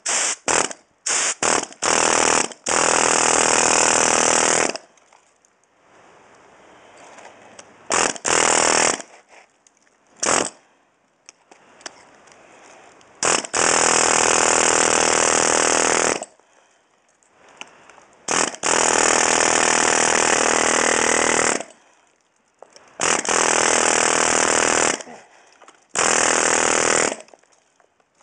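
Pneumatic air hammer chipping off old pool plaster, run in repeated bursts: a few quick blips at the start, then bursts of one to three seconds with short pauses between.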